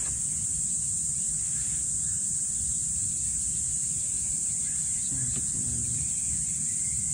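Steady high-pitched insect chorus, like crickets, over a low outdoor rumble, with faint distant voices about five seconds in.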